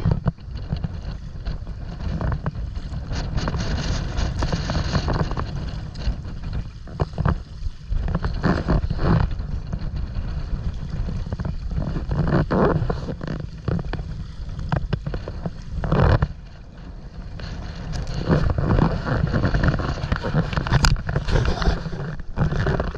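Strong gusty wind buffeting the microphone, with waves splashing against a stand-up paddleboard and its paddle, and several louder surges of splashing.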